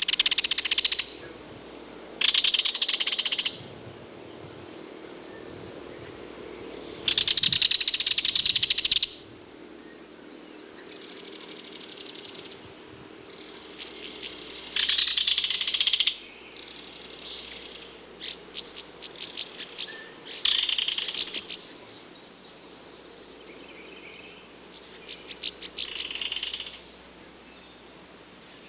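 Belted kingfisher giving its harsh, dry rattle call several times, each rattle lasting a second or two, with shorter broken bursts of clicks in between.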